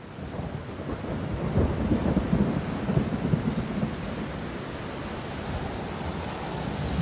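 Steady rain with a low rolling rumble of thunder, loudest about two to three seconds in. The sound fades in at the start.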